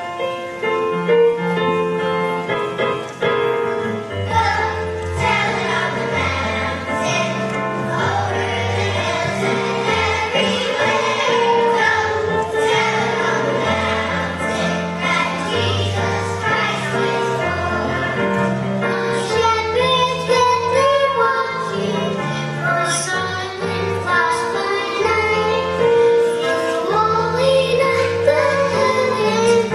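Children's choir singing a Christmas carol with instrumental accompaniment; a bass line comes in about four seconds in.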